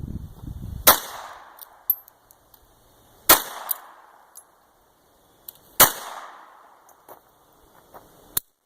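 Three handgun shots about two and a half seconds apart, each with a long echoing tail, then a shorter, sharper crack near the end.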